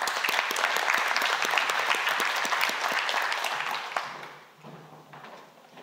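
Audience applauding with dense, even clapping that dies away about four seconds in.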